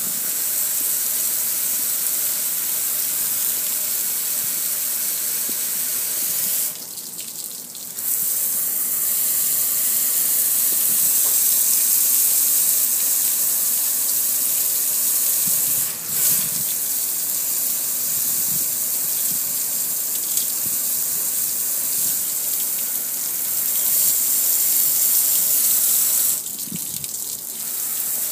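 Steady hiss of water sprayed from a hose onto a soapy gas grill, rinsing the soap off and splashing onto the metal and the concrete below. The spray lets up briefly about seven seconds in and again near the end.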